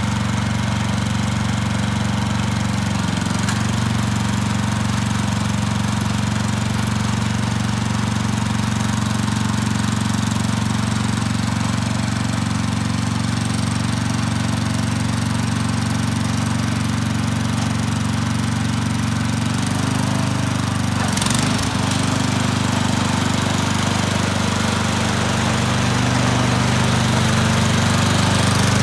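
Mametora HMD-B walk-behind tiller's 7-horsepower engine running steadily while the machine is driven along. About two-thirds of the way in there is a short click and the engine note shifts in pitch, then it runs on slightly louder.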